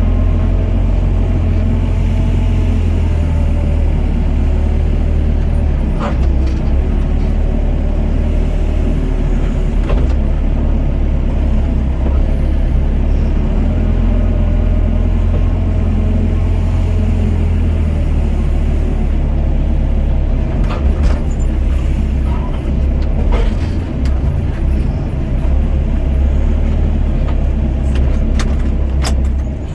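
Doosan DX55 mini excavator's diesel engine running steadily under working load while it works the bucket, with a few sharp knocks along the way.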